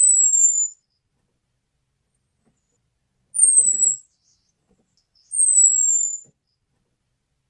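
Orange-headed thrush's thin, very high call note, each about a second long and falling slightly in pitch. One ends just after the start, and two more follow about three and five seconds in. It is the call used as a lure for males.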